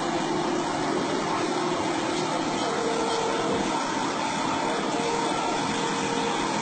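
Heavy-equipment diesel engines running steadily: a constant drone with a few faint steady tones under a broad hiss.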